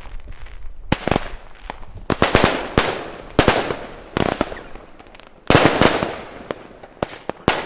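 Fireworks and firecrackers going off: irregular sharp bangs and crackles, some in quick clusters, each trailing off in an echo.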